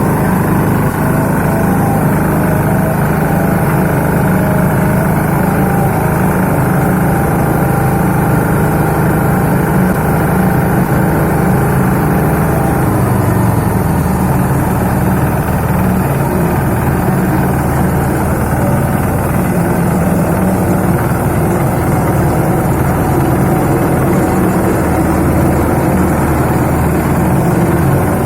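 Mini road roller's engine running steadily, its note shifting lower about halfway through.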